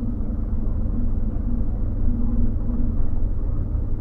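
Scania OmniLink single-deck bus underway, heard from inside the passenger cabin near the rear: a steady low rumble of its diesel engine and running gear, with an engine hum that comes and goes.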